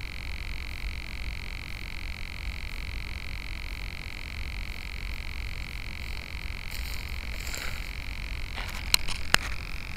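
Steady high hiss and low rumble picked up by an 808 key-fob camera's built-in microphone on a grounded, motor-off RC plane. Near the end there is a brief rustle, then two sharp clicks about half a second apart as the plane is jostled.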